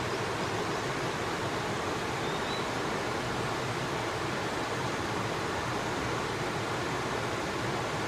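River water rushing, a steady, even noise. A faint, brief high chirp comes about two and a half seconds in.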